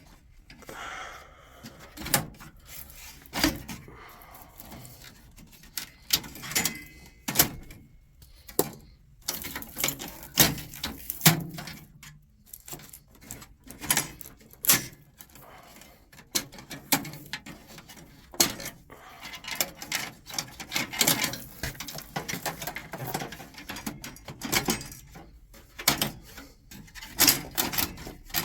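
Irregular clicks, knocks and clatter of plastic and metal parts being handled and pulled apart while a server tower is stripped by hand.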